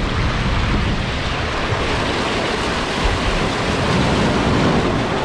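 Sea water rushing past a sailboat's hull as it sails, a steady loud wash, with wind buffeting the microphone.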